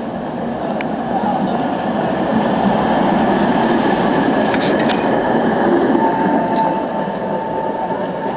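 City tram passing close by on street rails: the rumble of its wheels on the track swells as it draws level and eases as it moves off. A few sharp clicks come about halfway through, and a steady high whine sets in near the end.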